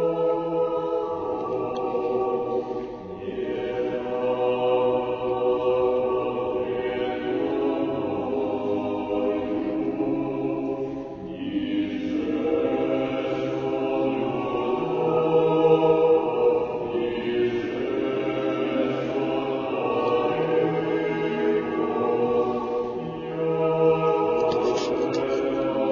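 Small choir singing unaccompanied Orthodox church chant in long held chords, the phrases pausing briefly a few times.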